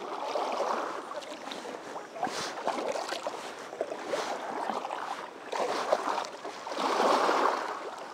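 Canoe paddle strokes swishing through the water, a swell of sound every second or two, with a few light knocks.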